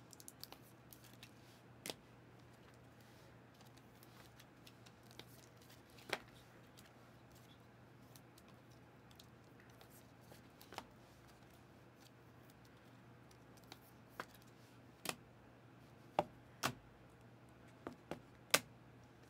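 Trading card foil packs and cards being handled: scattered light clicks and crackles at irregular intervals, more often in the last few seconds, over a faint steady hum.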